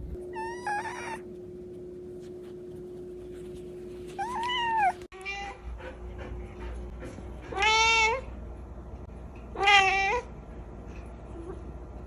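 Domestic cat meowing four times, each a drawn-out call that bends in pitch, the last two the loudest.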